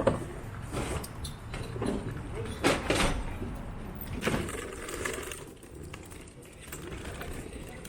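Scattered knocks and clinks of gear being handled during setup, over a low outdoor rumble, with a few faint voices.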